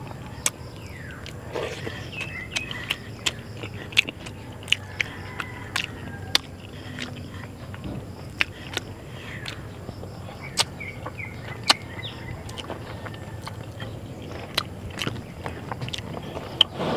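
Close-up eating sounds of a person chewing fried milkfish and rice: frequent sharp mouth clicks and lip smacks, irregular and several a second at times, over a faint steady background.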